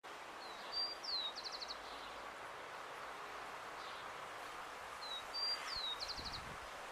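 Rufous-collared sparrow singing its song twice: a few clear whistled notes, a falling slur, then a short fast trill. Steady background noise runs underneath.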